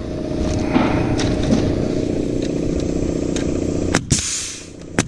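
DeWalt framing nailer driving nails into the wooden roof trusses: two sharp shots about a second apart near the end, the first followed by a short hiss. Under them runs a steady motor drone.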